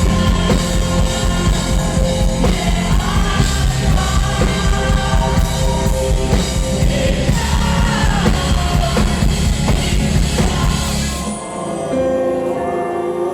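Live rock band playing with singing, drums and bass. About eleven seconds in the drums and bass stop and only held notes and voices ring on as the song ends.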